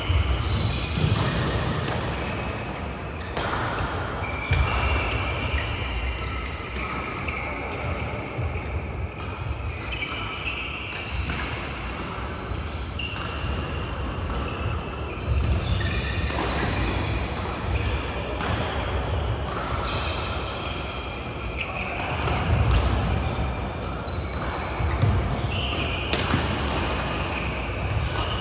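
Badminton play from several courts at once in a large hall: racket strokes on shuttlecocks, with players' feet thudding and shoes squeaking on the court mats throughout.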